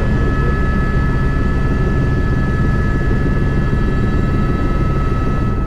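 Airbus H125 single-turbine helicopter in forward flight, heard from inside the cockpit: a steady rotor and engine noise with steady high whines over it.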